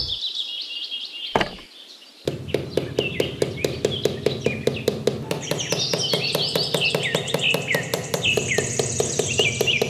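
Small hammer tapping rapidly on the top of a thin wooden stick, driving it into sand, about five quick taps a second starting a couple of seconds in after a single knock. Birds chirp throughout.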